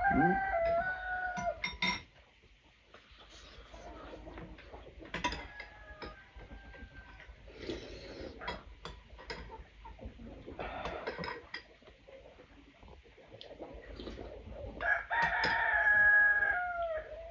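A rooster crowing: one long held call at the start and another, the loudest, near the end, each dropping in pitch as it finishes, with fainter crows in between. Light clinks of a metal spoon against a bowl.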